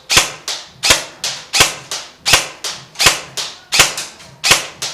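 Airsoft electric gun, most likely the G&G PCC-9, firing rapid semi-automatic shots at about three a second, each crack ringing out briefly. The shots stop near the end.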